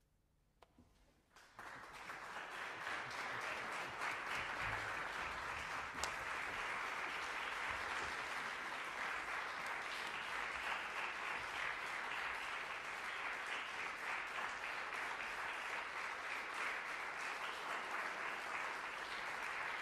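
Audience applause: after a second and a half of near silence it starts quickly and then holds as steady clapping.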